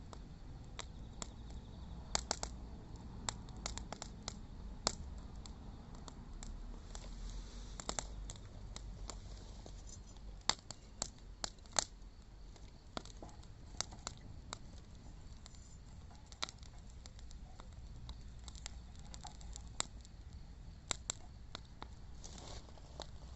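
Wood fire crackling, with irregular sharp pops and snaps and a few louder pops about halfway through.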